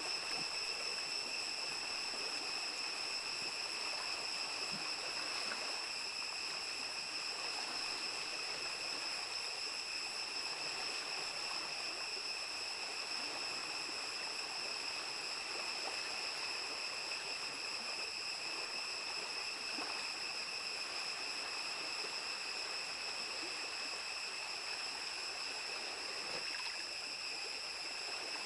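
Shallow forest stream flowing over stones, a steady rushing of water, with a steady high-pitched whine held above it.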